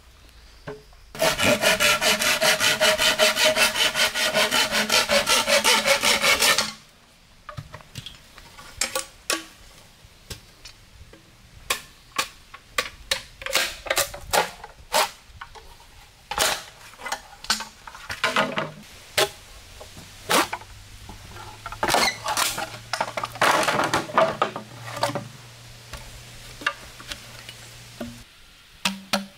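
Fast, even rasping strokes on wood, like a saw or blade working a pole, for about five seconds, starting a second in and stopping abruptly. Then scattered knocks and short scraping strokes of handwork.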